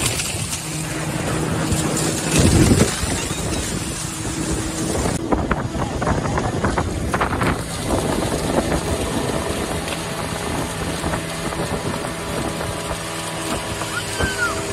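Speedboat engine running at speed under the rush and splash of water along the hull, with a louder burst of spray noise about two and a half seconds in.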